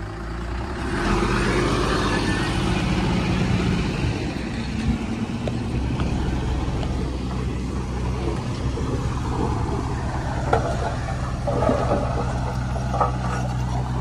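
Heavy diesel earthmoving machinery running steadily, louder about a second in, with a few sharp metallic knocks in the second half.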